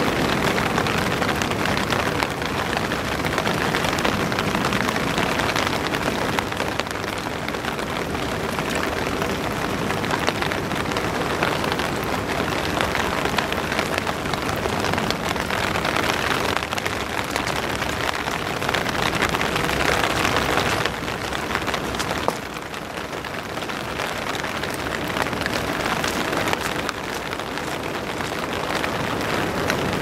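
Steady hissing patter of rain, with a faint steady hum underneath; the level drops suddenly about two-thirds of the way through, then builds back up.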